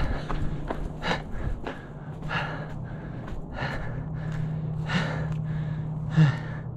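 A person breathing hard after exertion, in short gasping breaths about a second apart, the loudest a brief voiced exhale near the end. A steady low hum runs underneath.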